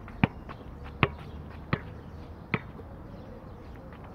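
A basketball bouncing on a hard court: four sharp bounces a little under a second apart, stopping about halfway through.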